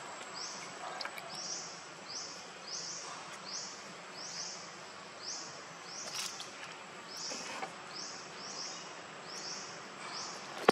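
Forest ambience: a steady high insect whine, with a short high chirping call repeating about twice a second.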